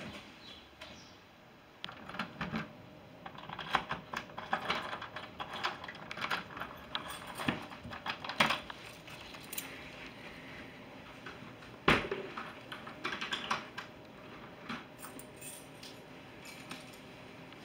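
A bunch of keys jangling and a key being worked in a door's deadbolt lock, with many small metal clicks and scrapes, and one sharp clack about twelve seconds in.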